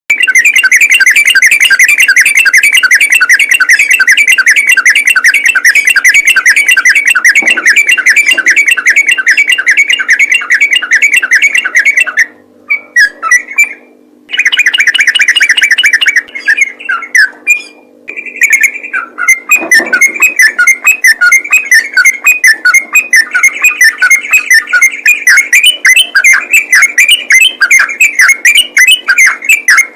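Sooty-headed bulbul singing a loud, fast, unbroken run of chirping notes, the rapid 'ropel' song of a bird in full voice, with a few short breaks near the middle. A faint steady hum lies underneath.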